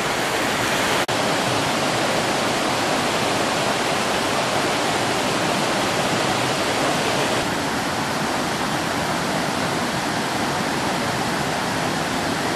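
River water flowing over and between boulders in small rapids: a steady rush of water, briefly cut off about a second in.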